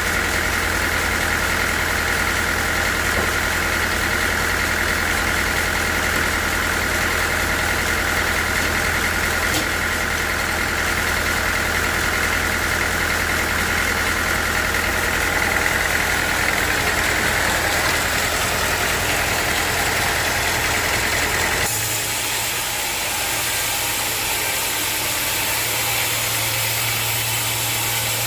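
Sawmill machinery running steadily: a constant motor hum with a higher whine over it. About 22 seconds in, the sound switches abruptly to a different steady hum with more hiss and no whine.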